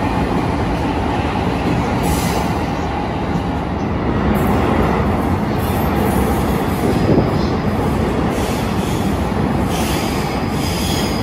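Electric commuter trains running through an underground station platform: first an orange-striped Musashino Line train, then a red-striped Keiyo Line train coming in from the tunnel. A steady, loud rail rumble carries on throughout, with high-pitched wheel squeal that comes and goes and grows stronger near the end.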